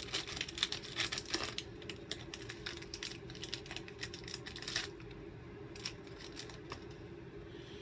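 Plastic wrapper of a hockey card pack being torn open and crinkled while the cards are handled: irregular sharp crackles and clicks for about five seconds, then fewer, over a steady low hum.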